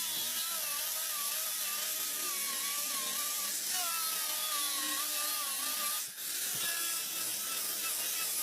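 Small high-speed power tool running with a steady whine whose pitch wavers slightly, dipping briefly about six seconds in.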